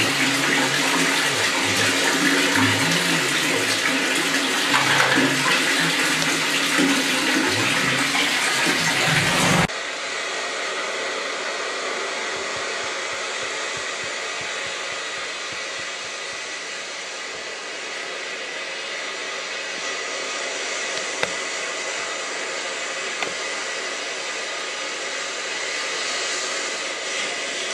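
Water running and splashing into a bathtub, a loud gushing rush. About ten seconds in it cuts off sharply to a quieter, steady rush of running water.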